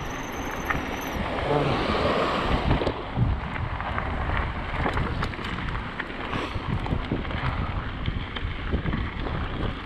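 Wind rushing over an action camera's microphone as a Radon Swoop 8.0 full-suspension mountain bike runs downhill on a dirt trail, with the clatter and knocks of the bike over rough ground. A faint high whine sounds in the first second.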